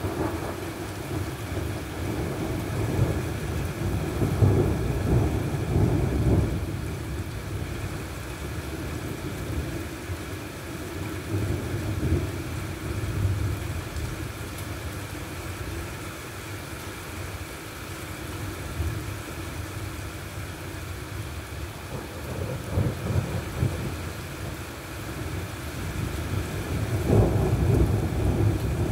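Rolling thunder from a thunderstorm's cloud lightning: low rumbles swell a few seconds in and again near the end, over a steady hiss of rain.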